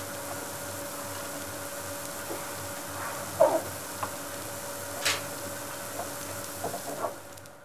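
Cream with onion and spices (malai ki sabzi) sizzling in a pan while it is stirred, with a spoon clinking and scraping against the pan a few times, loudest about three and a half seconds in and again about five seconds in. A faint steady hum runs underneath.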